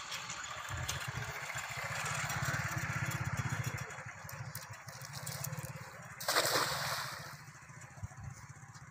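Hand-thrown cast net landing on the water with a short splash about six seconds in, over a steady rushing noise.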